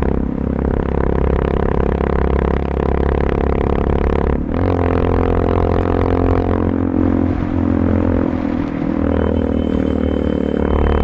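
Honda CB350 RS single-cylinder engine running steadily through a Red Rooster Performance aftermarket exhaust with the dB killer removed, its pitch shifting slightly about four seconds in.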